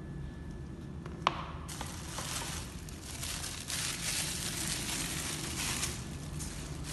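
A single sharp click about a second in, then several seconds of dense crinkling and rustling, which fades near the end.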